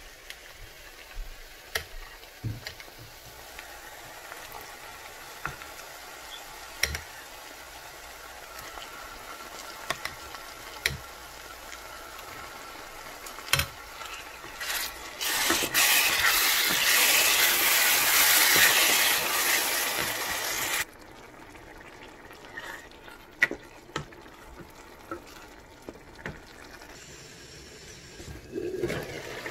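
Grated tomato sizzling in hot oil and onions in a stainless saucepan, with a wooden spoon clicking against the pot. About halfway through the sizzle turns loud for several seconds, then drops off suddenly.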